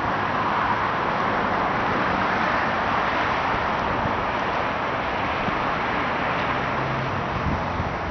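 Steady outdoor road-traffic noise, a continuous even rush with no single event standing out.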